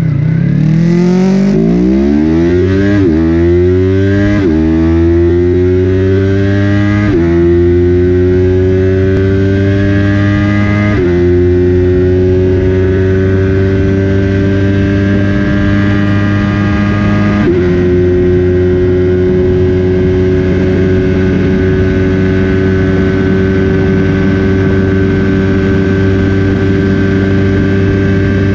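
Remapped Yamaha YZF-R3 parallel-twin engine under full-throttle acceleration through the gears. Its pitch climbs and drops sharply at each of five upshifts, with the gaps between shifts growing longer. In top gear it holds a steady drone that rises slowly as the bike nears top speed.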